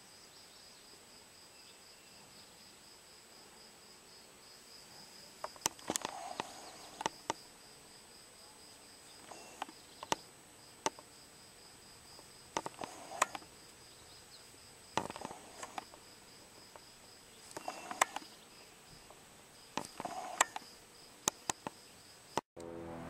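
Insects chirping outdoors: a high, evenly pulsed chirp repeating about two to three times a second over a steady high buzz. Groups of sharp clicks and taps break in every few seconds and are the loudest sounds. Just before the end the sound cuts out and music begins.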